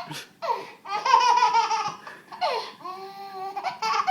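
A baby laughing hysterically in bouts of quick high-pitched chuckles, with falling squeals between them and a held squeal near the end.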